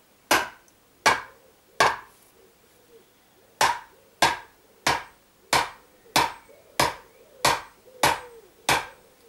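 Sledgehammer tapping the top of a bamboo pole, driving it into hard ground: a series of sharp knocks, three, then a pause of nearly two seconds, then nine more at a steady pace of about three every two seconds.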